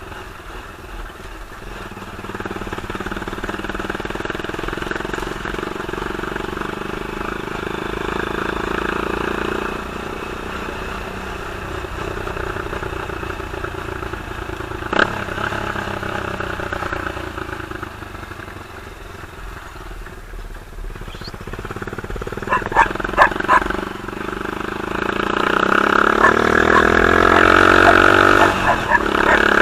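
Off-road buggy engine running as it drives on a dirt road, with one sharp knock about halfway and a burst of rattling knocks a little later. Near the end the engine revs up and gets louder.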